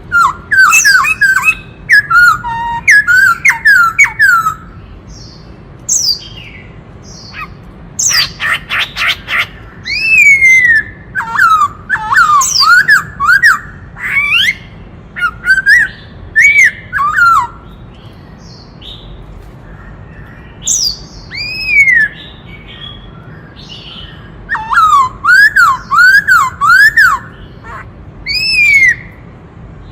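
Black-throated laughingthrush singing a loud, varied song: bursts of rapid slurred whistles rising and falling in pitch, with a harsh rattling note about eight seconds in and a couple of short pauses between phrases.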